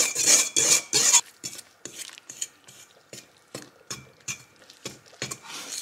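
Sourdough dough being stirred in a stainless steel mixing bowl: dense scraping for about the first second, then irregular clinks and knocks of the utensil against the bowl's side.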